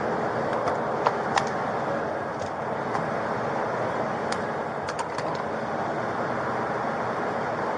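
Steady vehicle cabin noise, an even rumble and hiss from a police car, with a few light clicks.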